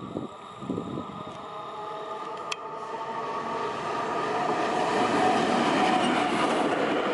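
EP05 electric locomotive approaching and passing close by on the rails, a steady rumble that grows louder to a peak about five seconds in. A single sharp click sounds about two and a half seconds in.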